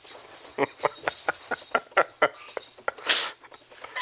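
A woman laughing hard: a quick run of short 'ha' pulses, several a second, then a sharp gasping breath in about three seconds in.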